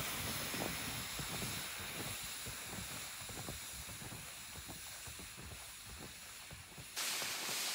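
Snowshoe steps crunching in snow while a towed sled slides behind with a steady hissing drag, slowly fading as the walker moves away. About a second before the end, a louder, brighter hiss takes over.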